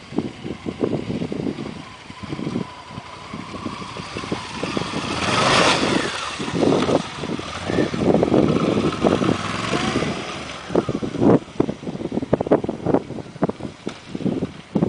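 Motorcycle engine revving in uneven surges, as when riding off-road.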